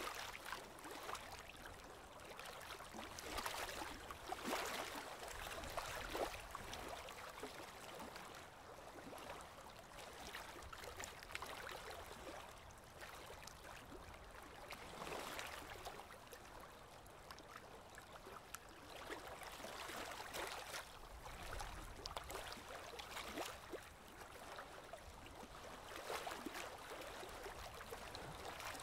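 Aquarium water trickling and gurgling: a faint, steady splashing with fine crackle that swells and eases now and then.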